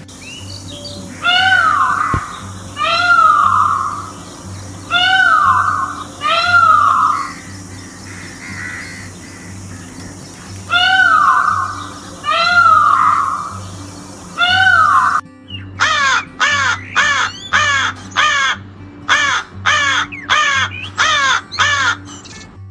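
A bird giving loud, harsh calls, each under a second long, seven in all and mostly in pairs. Then, after an abrupt change, a quick run of short, falling calls, about two a second.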